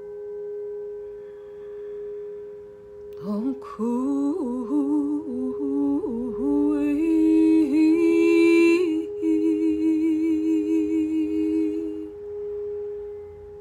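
Brass singing bowl ringing with a steady, sustained tone as it is rubbed around the rim with a wooden mallet. About three seconds in, a woman's wordless humming joins it, sliding up and down in pitch. The bowl's warbling overtone fades out about twelve seconds in.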